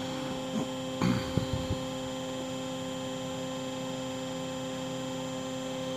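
Steady electrical hum with several fixed tones from a powered-up CNC lathe standing idle, before its program is run. A few light knocks about a second in.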